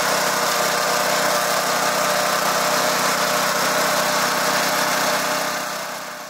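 Chaff cutter machine running steadily, its rotating cutter blades and drive making a constant mechanical drone. The sound fades out near the end.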